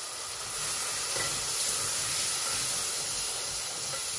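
Onion-and-spice masala frying in oil in a stainless steel pot, sizzling with a steady hiss as a little water added to the hot pan steams off. A wooden spatula stirs it near the end.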